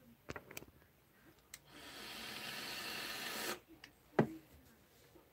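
A test draw on a freshly rebuilt Drop atomizer with new coils and cotton fired at 65 watts: a steady hiss of air and sizzling coil for nearly two seconds, then a single sharp click about four seconds in.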